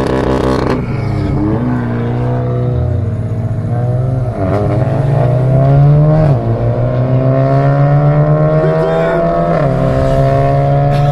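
Volkswagen car engine accelerating hard through the gears, its note climbing steadily and dropping back at each of several gear changes, over a steady low drone.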